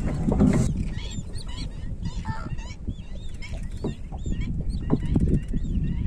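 A flock of wetland birds calling: many short, rising-and-falling honking and chirping calls overlapping, over a steady low rumble. There is a brief loud rush of noise in the first second.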